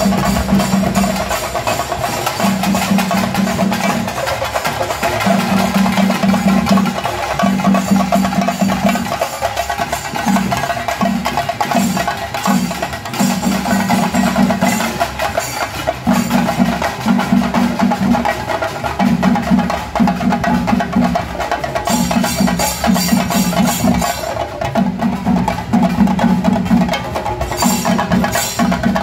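Tamate frame drums beaten with sticks in a fast, driving rhythm, with deeper drum strokes coming in repeated groups of about a second each.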